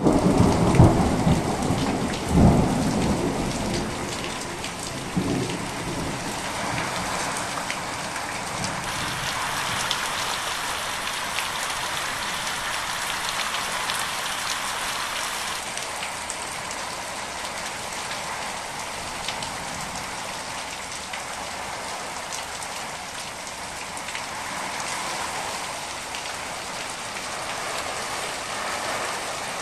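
Heavy rain falling steadily on ground and a tarpaulin car cover, with a low rumble of thunder over the first few seconds. The downpour gets harder for a while around the middle.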